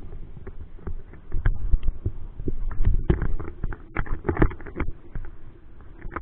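Muffled water sloshing with irregular knocks and clicks, heard through an action camera's waterproof housing at the waterline, over a low rumble. The knocks come thicker from about a second in.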